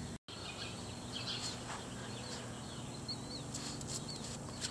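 Outdoor background ambience: a steady low hum with a few faint, short bird chirps scattered through it. The sound cuts out for a moment just after the start.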